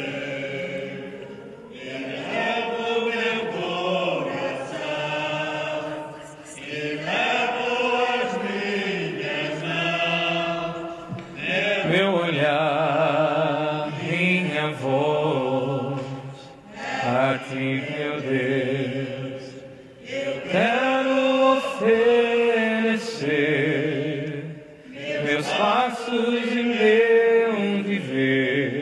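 A church hymn sung by voices with vibrato, in phrases a few seconds long with short breaths between them.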